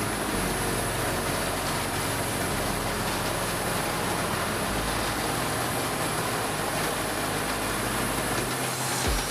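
Peterson 6710D horizontal grinder running, a steady, even machine noise with no let-up.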